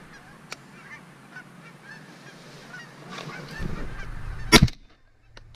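Geese honking and calling over a decoy spread, then a shotgun fires once about four and a half seconds in.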